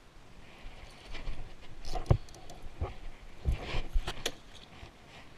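Handling noise right at the microphone: a string of uneven knocks and rubs as a hand grips and moves the camera beside a spinning rod and reel, with the loudest knocks about two and four seconds in.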